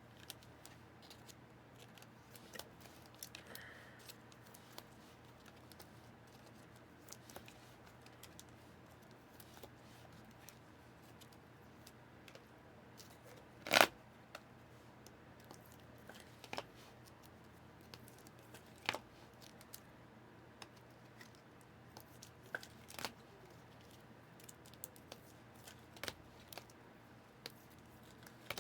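Trading cards being put into plastic sleeves and cases: faint plastic rustling and scattered small clicks, with one loud, sharp click about fourteen seconds in.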